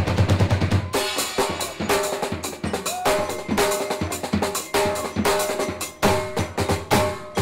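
Street percussion ensemble drumming a fast groove on plastic buckets, drums and cymbals, with dense rapid strikes. About a second in, the heavy low drumming gives way to a ringing pitched note that sounds with many of the strokes.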